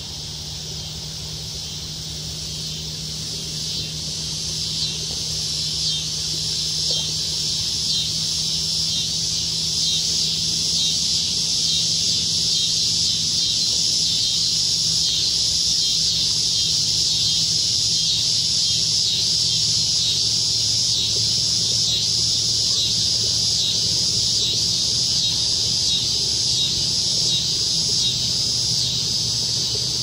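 A chorus of cicadas (jarflies) buzzing in a steady, high-pitched drone that swells louder over the first dozen seconds and then holds, with a faint even pulsing running through it.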